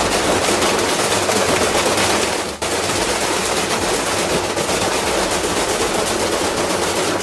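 A loud, continuous, rapid rattling clatter from a working machine, with a brief break about two and a half seconds in.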